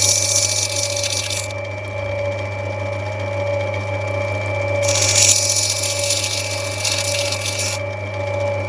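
Lapidary machine motor running steadily with a hum, as an opal is pressed against it twice for a few seconds each, giving two spells of loud grinding hiss.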